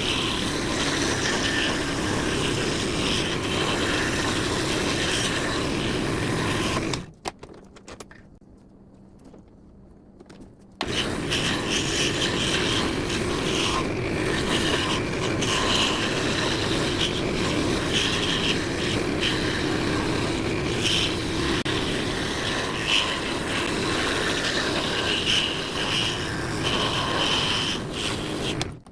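Scroll saw running and cutting wood: a steady mechanical buzz with scraping. About seven seconds in it stops for roughly four seconds, leaving a faint low hum, then starts again and runs until just before the end.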